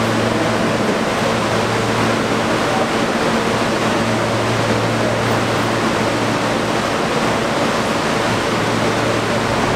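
Steady running noise inside an R160 subway car: a constant roar of wheels on rail with an even low hum underneath.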